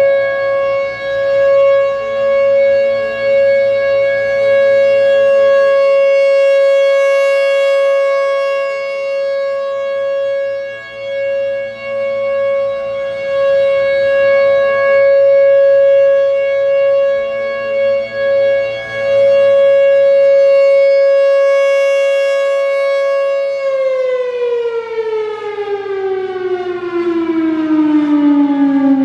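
Federal Signal Thunderbolt 1000 outdoor warning siren sounding its full-alert steady tone, one loud held note whose loudness swells and fades every few seconds as the rotating horn turns. About 24 seconds in, the pitch starts falling steadily as the siren winds down at the end of the alert.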